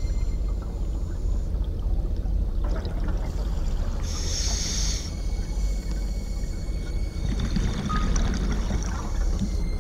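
Underwater ambience: a steady low rumble of water and bubbles from a scuba diver's gear, with the regulator hissing once on an inhale about four seconds in.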